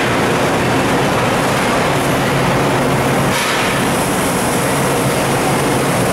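Midaco pallet changer on a Haas VF-5B/40 vertical machining center cycling: a steady mechanical whir with a low hum as the changer door lifts and the pallet starts to slide out. The sound shifts a little over three seconds in.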